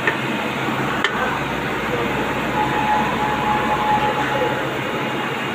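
Steady machine-shop background noise, a dense mechanical rumble and hiss. A single sharp click comes about a second in, and a thin steady whine sounds for about two seconds in the middle.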